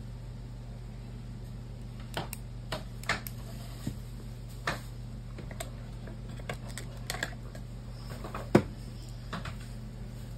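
Paperback pages being handled: scattered small clicks and crinkles of paper, starting about two seconds in, with one sharper tap near the end, over a steady low hum.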